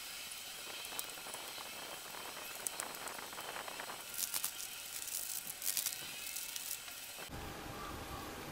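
Sauce-coated instant noodles being stirred and mixed in a bowl, with chopsticks clicking and wet, crackly squelching noises in bursts that are loudest from about halfway in, over a steady background hiss.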